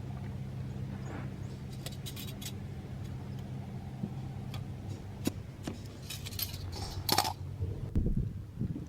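Scattered metallic clicks and clinks of hand tools working the chain adjuster on a Honda CB1000R's single-sided swingarm while the drive chain is tightened, over a steady low hum. The clicks grow a little more frequent and louder near the end.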